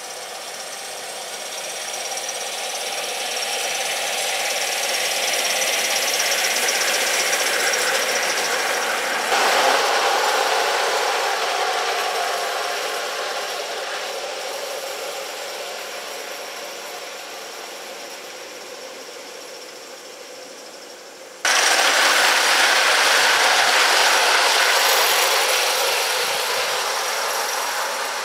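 A Gauge 1 live-steam model train running along its track. It grows louder over the first several seconds as it nears, then fades as it moves off. The sound jumps suddenly louder twice, about nine and about twenty-one seconds in.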